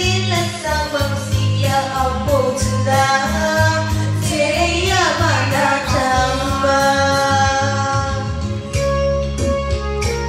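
A woman singing a melody into a handheld microphone over amplified backing music. Her voice stops near the end while the accompaniment carries on.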